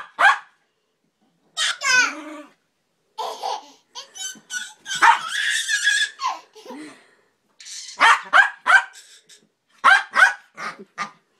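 A small dog barking in short bursts, mixed with a toddler's laughter and squeals.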